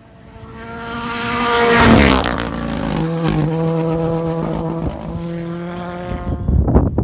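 Rally car engine at full throttle, approaching and passing close by with a drop in pitch about two seconds in, then a steady engine note as it pulls away and fades. Gusts of wind on the microphone near the end.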